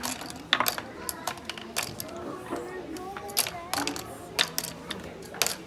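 Small hard toy pieces clicking and clattering as they are handled and dropped, about ten sharp irregular clicks, with voices murmuring underneath.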